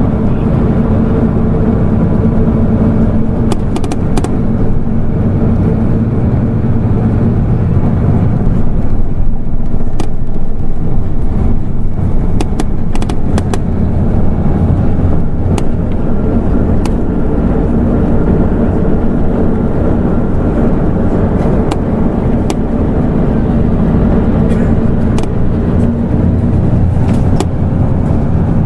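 A Hino LNG-HU8JMGP city bus's diesel engine runs as the bus drives. Its note drops about a third of the way through and rises again in the second half as the bus slows and pulls away. Short clicks and rattles come through at times.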